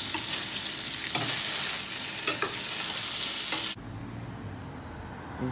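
Coiled sausage sizzling in a stainless frying pan beside scrambling eggs, with sharp clinks of tongs and a fork against the pans. It cuts off suddenly a little over three and a half seconds in to a quieter low hum.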